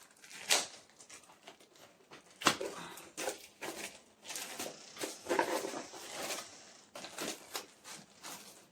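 Product packaging being handled and opened by hand: irregular rustling and tapping, with sharp clicks about half a second and two and a half seconds in.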